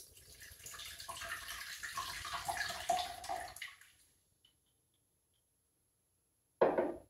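Gin poured in a thin stream from a small glass sample bottle into a glass mixing glass, trickling for about four seconds and then stopping. A short knock near the end.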